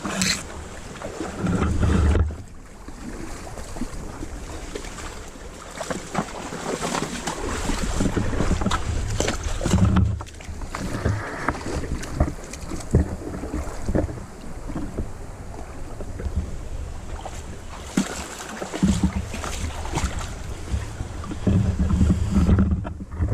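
Wind buffeting the microphone in gusts, over the rush and splashing of creek water.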